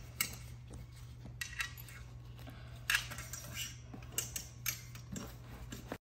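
Light metallic clinks and rattles of a harness strap's ring and buckles being handled against a stroller wagon's aluminium frame, with scattered clicks, the loudest about three seconds in. It cuts off suddenly near the end.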